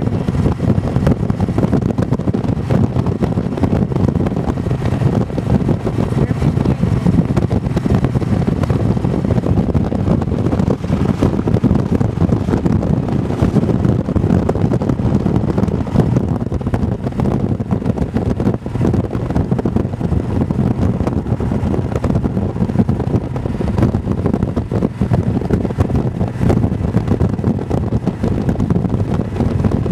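Motorcycle riding at road speed: steady wind rush over the microphone mixed with the engine's low running noise.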